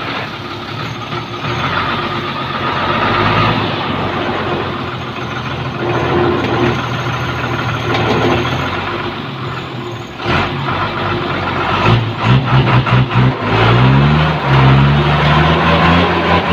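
REO 6x6 truck's engine running at a steady idle, then revved up and down in short repeated pulses from about twelve seconds in. The truck is loaded heavily with bamboo and stuck in slippery mud, about to be winched out.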